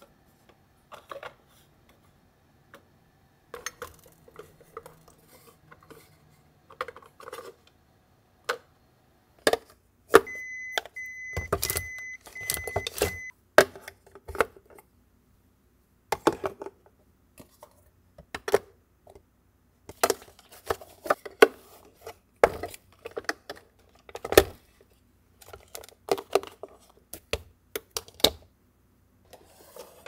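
Plastic storage cases and food packages clacking and knocking as they are set into a refrigerator, in scattered taps and a few sharper knocks. About ten seconds in comes a run of about five short high beeps over some three seconds, the refrigerator's door-open alarm.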